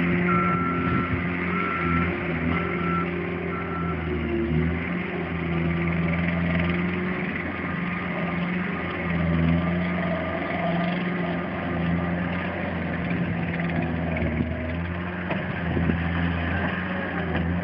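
Diesel engine of a compact track loader running and working, its pitch rising and falling with the load. A reversing alarm beeps four times in the first few seconds.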